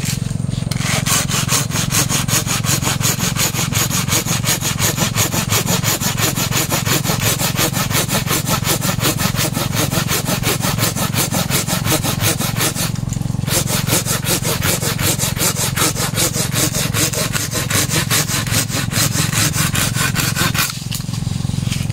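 Hand pruning saw cutting through a jackfruit branch in rapid, even back-and-forth strokes. The sawing starts about a second in, breaks off briefly about halfway through, and stops about a second before the end.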